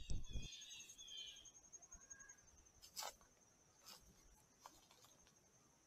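Quiet outdoor ambience: a faint, steady, high-pitched pulsing trill throughout, a few short bird chirps in the first second, and a few dull thumps at the very start. Soft clicks come about three, four and almost five seconds in.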